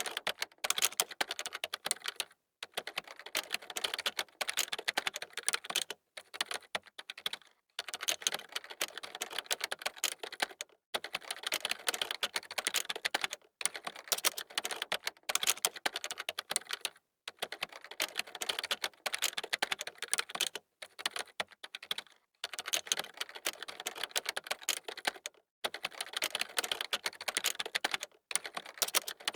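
Fast typing on a computer keyboard: quick runs of key clicks, broken every few seconds by brief pauses.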